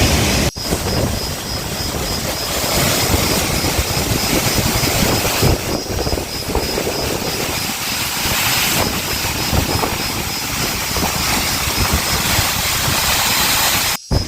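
Waterfall rushing loudly as a steady, dense roar, with brief breaks about half a second in and just before the end.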